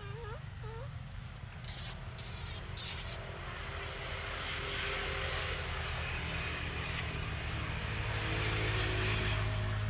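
A steady low motor hum that swells louder over the last few seconds, over a high insect buzz, with a few brief squeaks and clicks in the first few seconds.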